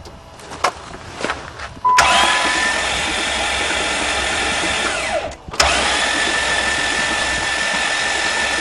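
Starter motor cranking a 60-degree V6 with all its spark plugs out, spinning fast and even with no compression to blow water out of the hydrolocked cylinders. After a few clicks the starter spins up about two seconds in, winds down and stops just after five seconds, then starts cranking again half a second later.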